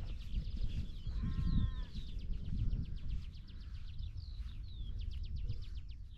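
A sheep bleats once, briefly, about a second in, over birds singing with quick chirps and falling whistled notes. Wind rumbles on the microphone throughout.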